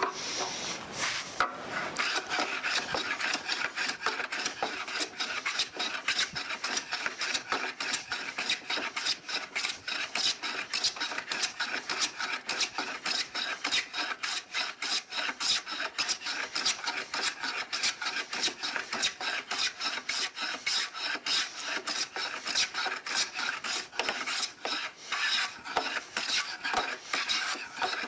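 Stanley No. 3 Bailey smoothing plane shaving a wooden block, in quick, repeated strokes with a steady rasping hiss.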